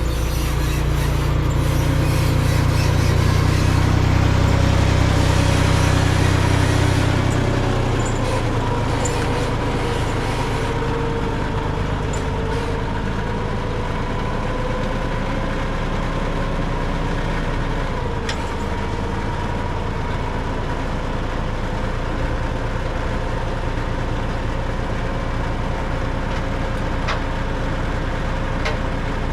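Engine of a machine at work spreading gravel, running steadily with a faint steady whine over it. It is louder for the first several seconds, then eases to a steady level.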